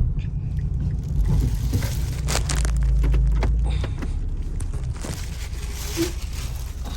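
A Mazda 3 with a heavy low rumble and a few rattling knocks about two to three seconds in; the rumble eases after about four seconds. This is the vibration and rattle that the mechanic suspects come from weak engine mounts.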